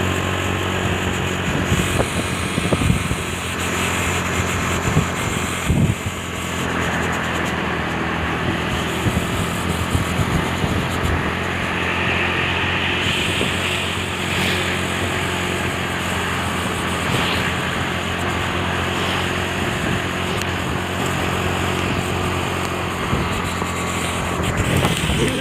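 Diesel truck engine running at a steady speed: a constant low drone with an even hiss of road noise above it.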